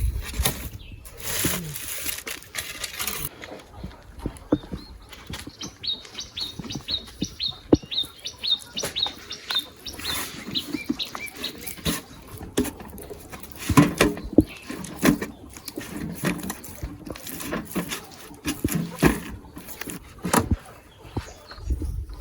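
A bird chirping in a quick run of short high notes, about three a second, for a few seconds in the middle. Scattered clicks and knocks sound throughout.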